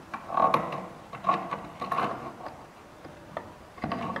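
A small wooden block being pushed and worked into place in a wooden jig: wood knocking and scraping against wood in several short bursts, a few loud clicks among them.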